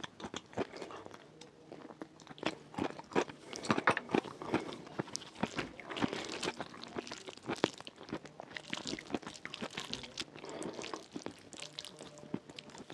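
Close-miked chewing and wet mouth sounds of someone eating rfissa, soft shredded flatbread, lentils and chicken in sauce, with fingers squishing through the food in the dish. Irregular crackly clicks run throughout, thickest in the first half.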